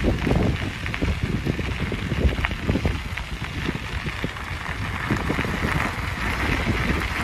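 Wind buffeting the microphone of a bike-mounted phone while riding, with a steady stream of small clicks and crackles, like rattling and tyres on rough ground.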